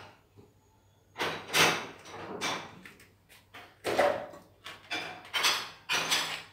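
A run of short scrapes and clatters, about ten of them, beginning about a second in: objects being handled or moved about.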